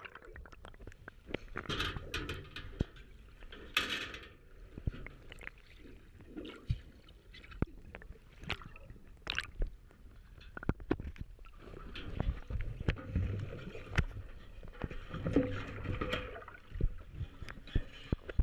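Water heard through an underwater camera: muffled gurgling and sloshing, with many sharp clicks and knocks throughout and a heavier low rush for a few seconds past the middle.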